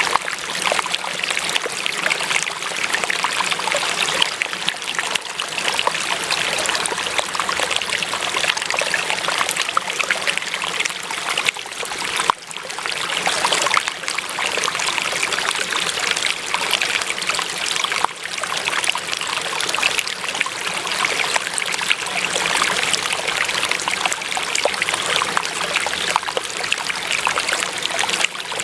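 Running water trickling steadily, like a small stream, with brief dips in level about twelve seconds in and again about eighteen seconds in.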